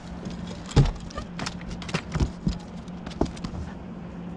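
Irregular knocks and thumps as a landing net holding a freshly caught walleye is swung aboard an aluminium fishing boat, net and fish striking the hull. The loudest knock comes about a second in, with several lighter ones after it.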